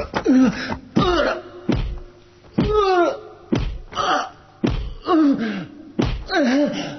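A person's voice giving short cries over and over, about one a second, each starting sharply and falling in pitch.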